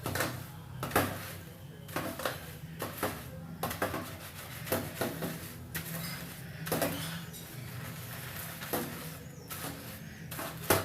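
Hands working shampoo into a doll's wet hair at a sink: irregular rubbing and handling noises with scattered small knocks.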